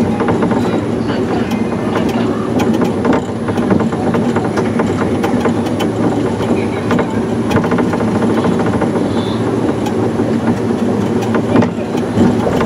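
Small electric monorail ride car running along its elevated rail: a steady rumble with constant fast rattling and clicking.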